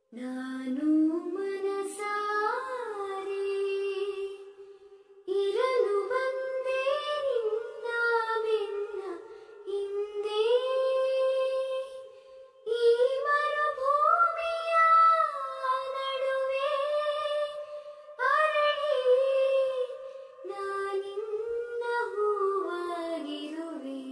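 A single high voice singing a slow melody of long, gliding held notes, with no accompaniment, in phrases broken by short pauses.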